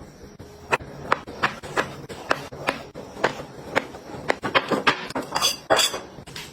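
Small hard objects clicking and clinking as they are picked up and set down one after another, about a dozen sharp clicks, then a short rustling burst near the end.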